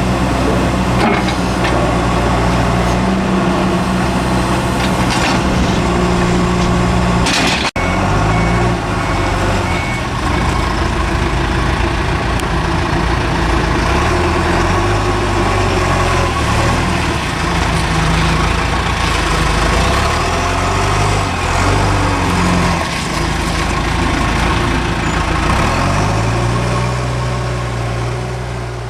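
John Deere 310E backhoe loader's turbocharged diesel engine running, its speed stepping up and down as the machine is worked. There is a brief break in the sound about eight seconds in, and a short run of high beeps just after it.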